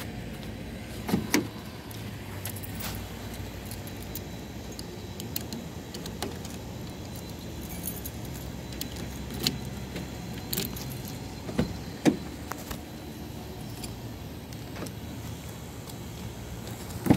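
Steady low hum of an idling car, with scattered sharp clicks and taps, the loudest about a second in and about twelve seconds in.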